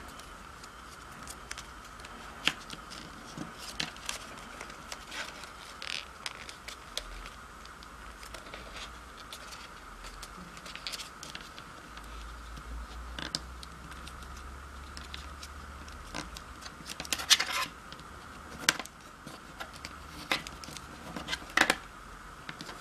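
A sheet of origami paper being folded and creased by hand: crackling rustles and short scratches of the paper, with a burst of sharper crinkles about three-quarters of the way through.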